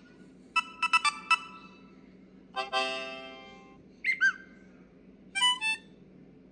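Samsung Galaxy A42 5G preloaded notification tones played one after another, about a second apart. First comes a quick run of clicky notes, then a single ringing chime that fades away, then a pair of swooping blips, and near the end a short bright chime.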